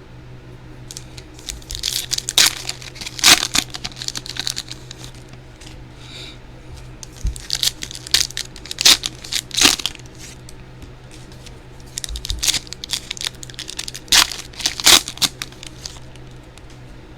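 Trading-card pack wrappers being torn open and crinkled, in three bouts of sharp crackling with pauses in between.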